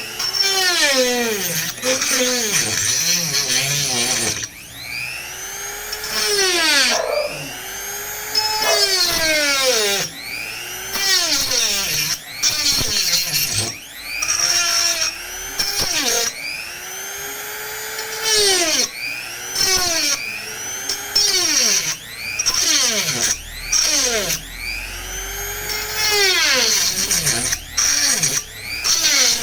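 High-speed rotary tool cutting a slot in a PVC piece. Its whine sweeps up and down in pitch over and over as the bit is pressed into the plastic and eased off.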